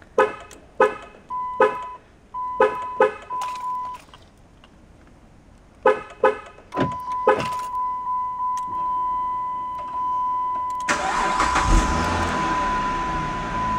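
Car being remote started from its factory key fob through an aftermarket remote starter: a run of short clicks and beeps, then a steady high beep, and about eleven seconds in the engine cranks, catches and runs on at idle.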